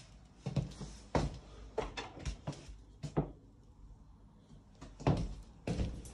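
Footsteps on a laminate floor: a run of dull knocks at walking pace, a pause of about two seconds in the middle, then more steps.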